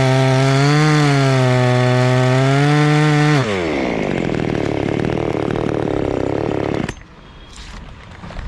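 Chainsaw running at high revs, its pitch wavering as it works through the teak wood. About three and a half seconds in the throttle is released and it falls to a lower, rougher note, then it stops about seven seconds in.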